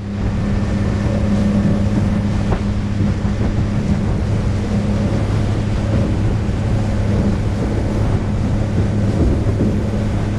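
Small boat's outboard motor running at a steady speed as the boat moves along, with a constant low hum, water noise and wind on the microphone.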